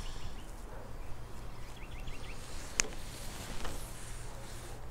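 A cloth wiping over a wooden radio cabinet, soft rubbing, with a quick run of faint bird chirps about two seconds in and a single sharp click just before three seconds.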